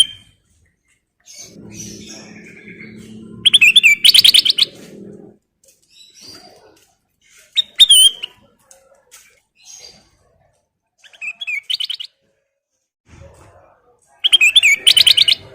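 Kutilang emas, a bulbul, singing in four loud bursts of rapid chattering notes separated by pauses of a few seconds. A low hum sits under the first burst.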